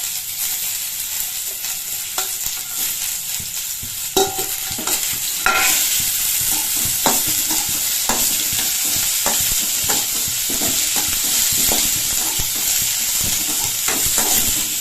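Ridge gourd peels frying in hot oil in a pan: a steady sizzle that grows louder about five seconds in, with frequent taps and scrapes of a spatula stirring them.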